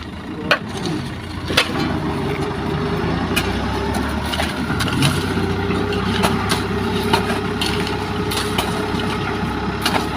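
Heavy diesel engine of the machinery working the haul road, running steadily and growing louder about three and a half seconds in. Sharp metallic knocks come now and then, the two loudest in the first two seconds.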